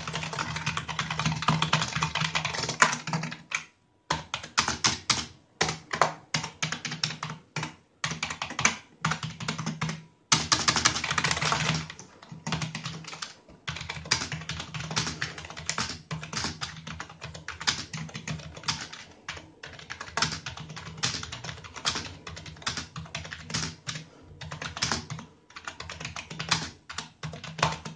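Typing on a TeckNet X703 mechanical gaming keyboard: runs of fast key clicks broken by short pauses, with a dense run at the start and another about ten seconds in, and slower single keystrokes in between.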